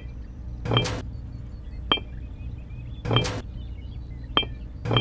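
Miniature clay bricks clinking: short clattering as a brick is picked from the pile and knocks against the others, alternating with a sharp click as each brick is set down in a plastic toy trailer bed, about one sound every second.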